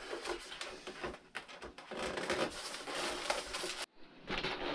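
Handling noise of a foam RC model plane being reassembled on a workbench: light rustling and irregular small clicks as the wing, aileron wiring and small parts are moved about. The sound breaks off suddenly for a moment a little before the end.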